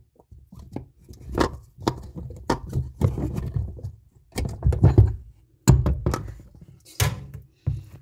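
Irregular knocks, clicks and thuds of a screwdriver working at the centre screw of a top-loading washing machine's plastic pulsator, to loosen it and take the pulsator off.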